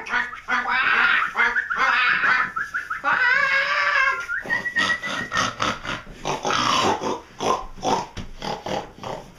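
People imitating animal noises: high, warbling pig-like squeals for the first half, a short held high note around the middle, then a quick run of short bursts like laughter.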